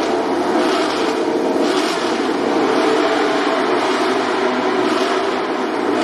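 MotoGP racing motorcycle engines running in the pit lane: a loud, steady mechanical din that brightens and swells roughly once a second.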